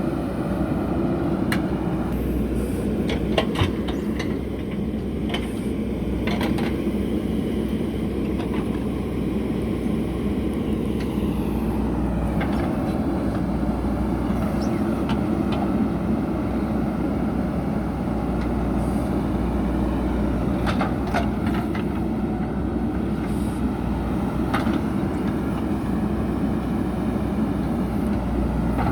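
JCB backhoe loader's diesel engine running steadily as the machine works, with a few short, sharp knocks about a second and a half in, around three and a half seconds in, and again later.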